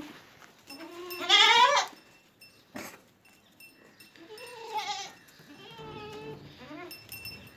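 Sirohi goats bleating: one loud wavering bleat about a second in, then several quieter bleats in the second half, with a sharp click near the middle.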